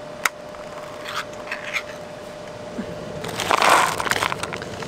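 A few sharp clicks, then a dense crinkling crunch about three and a half seconds in, over a faint steady hum.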